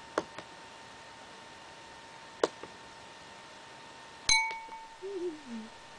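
A small hard object dropped onto pantyhose stretched over a glass bowl, tapping lightly twice about two seconds apart, then striking the glass with a sharper clink that rings briefly. A short wavering sound, falling in pitch, follows near the end.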